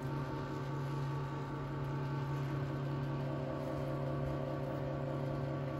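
Stepper motors in the Sixi 3 robot arm's high-ratio geared actuators running as a joint moves, a steady low hum with a buzzy whine above it. It starts suddenly as the move begins.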